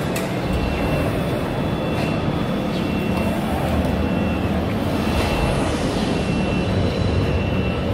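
Steady din of a busy exhibition hall full of running machinery, with a thin high whine that comes and goes several times.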